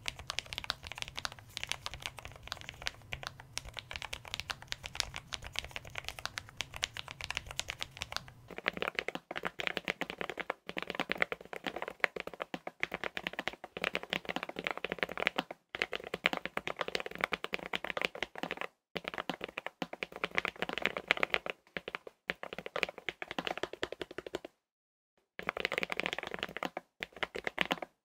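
Fast typing on a Lofree Edge gasket-mounted low-profile mechanical keyboard with Kailh POM 2.0 switches and stock PBT keycaps: a dense run of soft clacks with a few short pauses. A low hum underneath drops out about eight seconds in and the keystrokes turn fuller.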